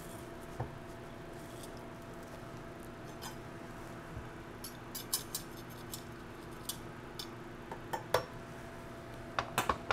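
Metal garlic press squeezing a clove, then a knife blade scraping the crushed garlic off the press into a blender jar: scattered light metal clicks and scrapes, most of them in the second half.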